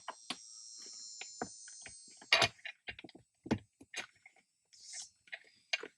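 Irregular sharp plastic-and-metal clicks and knocks as a small TRD cap is worked and pressed into the chrome collar of a shift knob until it snaps in, with a faint high hiss in the first two seconds.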